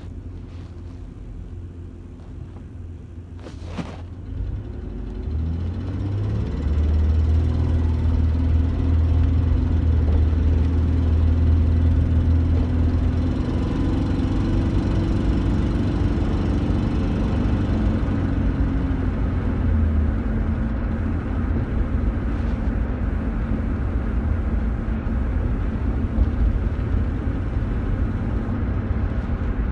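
1996 Ford Ranger's 3.0-litre V6 engine running with a ticking noise that the owner says is louder under load and eases only a little once warm. A single sharp click comes about four seconds in, and the engine grows louder about six seconds in, easing off a little around twenty seconds.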